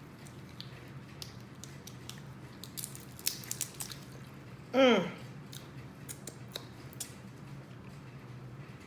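A person eating steamed crab legs: scattered wet mouth smacks and clicks, busiest about three seconds in. About halfway through comes a short, loud voiced sound that falls in pitch.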